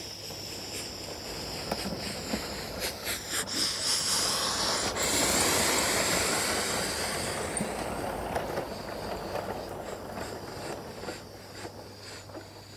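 Motorised LEGO train running past close by on plastic track: a whirring rattle with sharp wheel clicks over the track joints, growing louder to a peak about halfway through and then fading.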